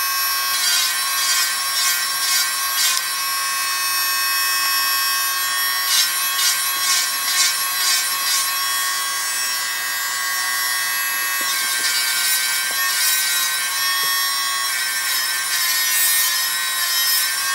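Electric nail drill running with a steady high whine as its pointed smoothing bur files the jagged edges off cut toenails. The bur rasps against the nail in runs of short strokes in the first few seconds, again around six to eight seconds in, and near the end.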